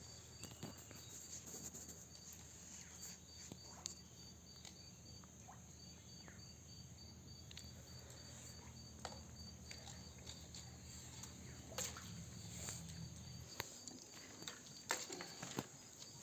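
Faint outdoor ambience of insects, with a steady high buzz and a thin high chirring tone. Scattered small clicks and taps are heard, and a low hum stops about two-thirds of the way through.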